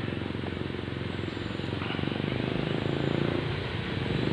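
Motorcycle engine running steadily, growing a little louder in the second half.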